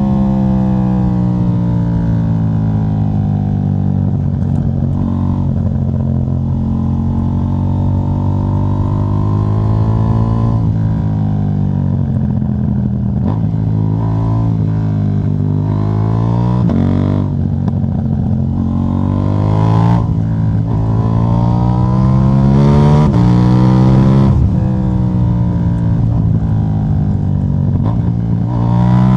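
KTM 790 Duke's parallel-twin engine running through an exhaust with the catalytic converter removed. Its pitch falls and rises slowly over several seconds, with a few abrupt steps in engine speed.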